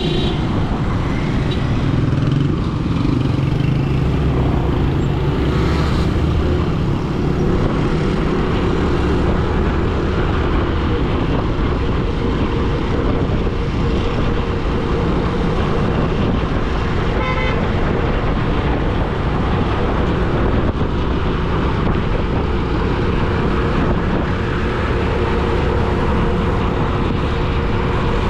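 Road traffic: steady engine and road noise, with a short horn toot about two-thirds of the way through.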